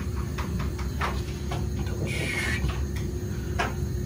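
Metal spoon scooping thick sauce from a ceramic bowl: a few light clicks and a short scrape about two seconds in, over a steady low hum.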